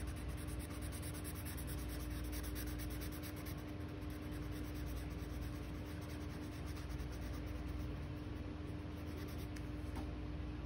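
Felt-tip marker scratching rapidly back and forth on paper, colouring in a shape with quick short strokes, over a faint steady hum. The scribbling stops shortly before the end.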